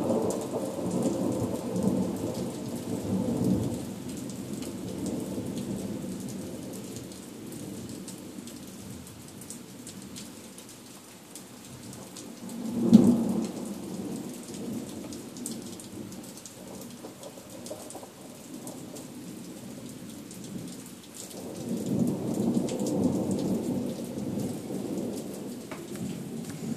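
Thunder over steady rain: a rolling rumble in the first few seconds, a sharp, loud clap about halfway through, and another long rumble near the end. Rain hisses and patters throughout.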